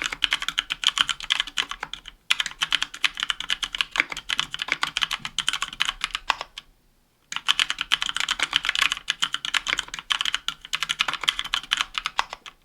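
Fast continuous typing on a 60% aluminium mechanical keyboard with Kailh Pro Purple tactile switches, an aluminium plate and GMK keycaps: rapid clacking keystrokes. There is a brief pause about two seconds in and a longer one just before the middle, and the typing stops right at the end.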